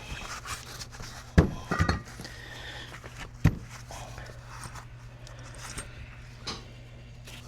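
Alternators and metal parts handled on a workbench: a sharp knock about a second and a half in, a double clunk just after, and another knock a couple of seconds later, over a steady low hum.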